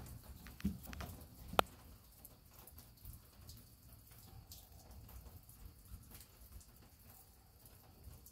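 Faint outdoor night ambience: a couple of soft knocks and one sharp click in the first two seconds, then a low steady hiss with scattered light ticks.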